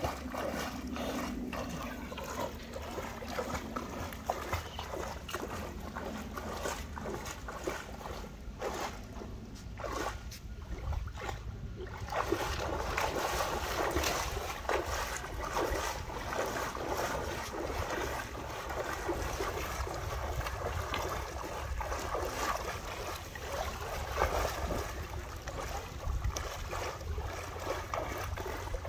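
Water splashing and sloshing from a swimmer's steady flutter kick while floating on his back in a pool, an irregular run of small splashes that grows busier from about halfway through.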